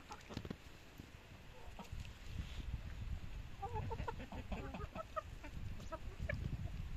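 Italian (Leghorn) hens clucking, a quick run of short, low calls that fills the second half, over a low rumble.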